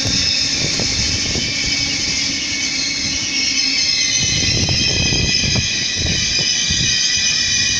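A train moving through the station, with a steady high whine and a run of low knocks from about four to six seconds in.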